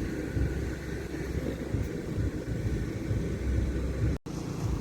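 Low, steady rumble of a passing river tour boat's motor, broken by a brief dropout about four seconds in.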